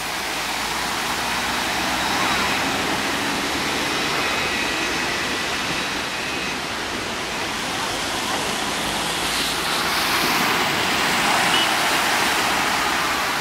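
Steady rushing, splashing noise of floodwater, swelling about ten seconds in.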